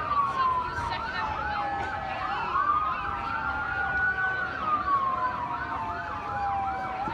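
Emergency vehicle sirens sounding together: one in a slow wail that falls, rises and falls again over several seconds, the other a fast yelp repeating about three times a second.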